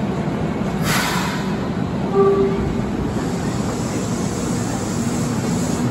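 Kyoto Municipal Subway train pulling out of an underground station: a short hiss of air about a second in, a brief tone a second later, then the motors' whine and hiss rising as the train gets under way.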